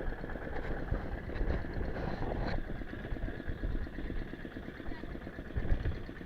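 A fishing boat's engine running steadily, a low, rapidly pulsing rumble.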